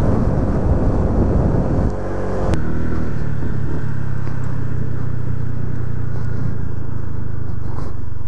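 Honda PCX 125 scooter's single-cylinder engine running while riding, at first under a noisy rush of wind on the microphone. About two and a half seconds in the sound cuts abruptly to a steadier, even engine drone.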